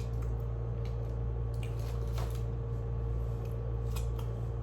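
Close-miked chewing of a moist brownie: scattered wet mouth clicks and smacks over a steady low electrical hum.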